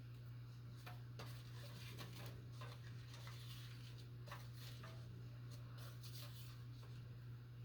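Faint, scattered light taps and rustles of paper cut-outs and craft pieces being handled on a desk, over a steady low hum.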